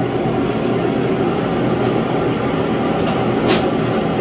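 Propane heater running with a steady, even noise. A couple of light clicks sound near the end.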